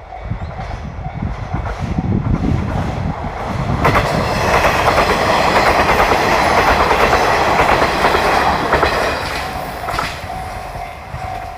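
Resort Shirakami "Kumagera" train passing over a level crossing, its wheels clattering over the rail joints, loudest from about four to nine seconds in. A level-crossing warning bell rings in a steady repeating tone before and after the passing.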